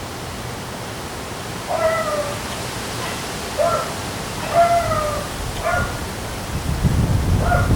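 A cat meowing about five times, short slightly falling calls, over a steady hiss of wind and rain. Near the end, wind buffets the microphone with a low rumble.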